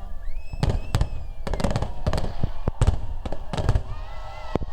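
Fireworks salute: a rapid, irregular series of loud bangs from exploding shells, about a dozen in under five seconds.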